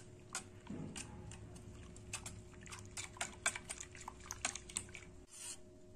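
Wire whisk stirring buttermilk in a stainless steel bowl: quick, irregular clicks of the wires against the steel with liquid splashing, pausing briefly near the end.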